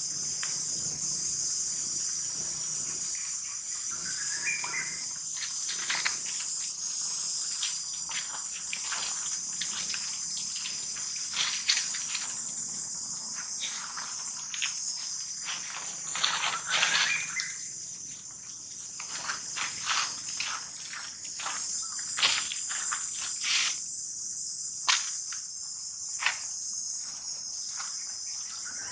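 Steady high-pitched chorus of insects, with scattered sharp clicks. A brief rising squeal from a young macaque comes about four seconds in, and again about two-thirds of the way through.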